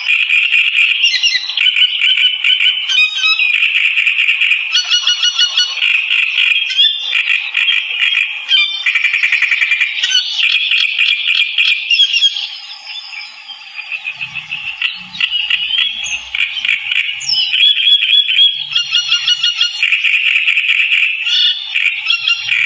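Songbird in full song ('gacor'), singing almost without pause in rapid chattering phrases and trills, with a short lull about thirteen seconds in.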